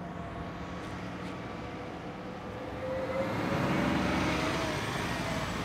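Charter coach bus driving past close by, its engine and tyre noise swelling to its loudest about four seconds in, then easing off.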